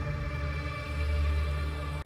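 Background music: a low, steady drone with held tones.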